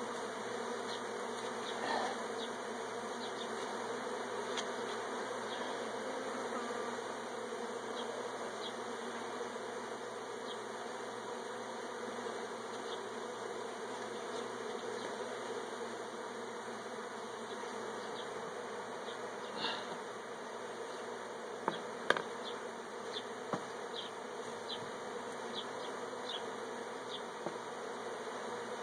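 A mass of honeybees buzzing steadily around an opened hive during honey harvesting. A few sharp knocks stand out a little past the middle.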